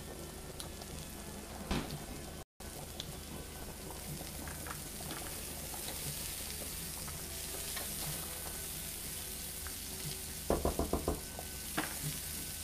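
Zucchini sizzling as it sautés and browns in a frying pan, stirred with a spatula; a quick run of sharp taps from the spatula on the pan about ten seconds in.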